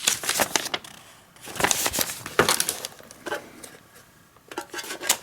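Packaging and small parts being handled during an unboxing: bursts of rustling with sharp clicks and taps, in three or four groups.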